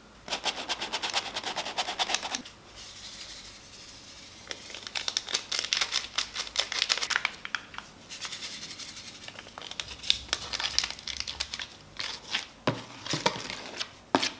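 Small sachets crinkling and being torn open and shaken out, then a metal spoon stirring and scraping dry flour in a plastic tub, with a few sharper knocks near the end.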